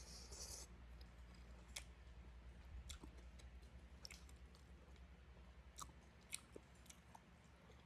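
Faint chewing of beef noodle soup, with scattered small clicks.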